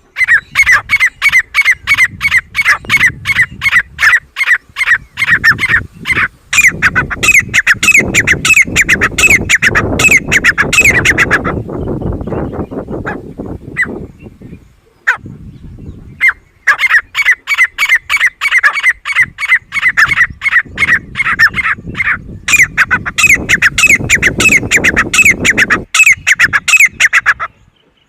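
Grey francolin calling loudly: a fast run of harsh repeated notes, given in two long bouts with a pause of about five seconds between them.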